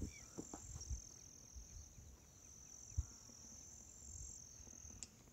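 Faint insect chorus: a steady high-pitched trill that stops shortly before the end, with a few soft thumps.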